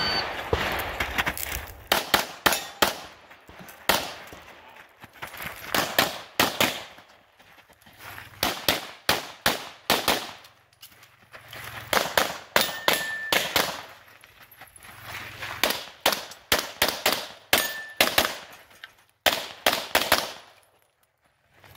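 A shot-timer beep at the start, then a competitor's pistol firing fast strings of shots, several shots at a time with short pauses between as he moves through a practical-shooting stage. The shooting stops about two seconds before the end.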